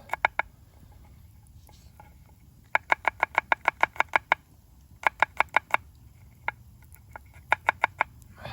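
Knife chopping vegetables on a chopping board: quick runs of sharp taps, about eight a second, broken by short pauses.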